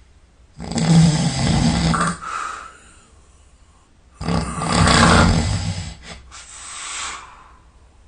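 A person snoring heavily in deep sleep: two long, loud snores about three and a half seconds apart, the second one longer and breaking briefly in the middle.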